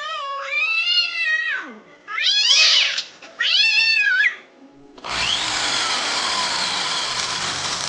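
A cat meowing plaintively in three drawn-out, wavering cries, followed about five seconds in by a harsh, steady hissing noise that lasts a few seconds.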